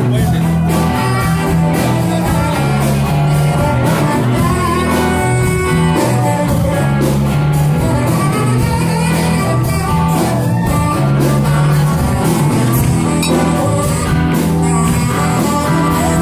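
Live band playing rock music, loud and steady, with electric guitar, a bass line, drums and a singer.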